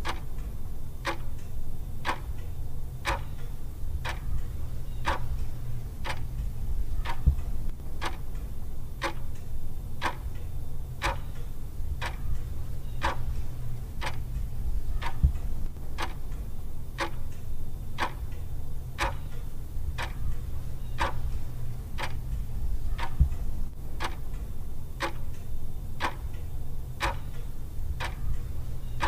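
Clock ticking steadily, about two ticks a second, over a low steady hum.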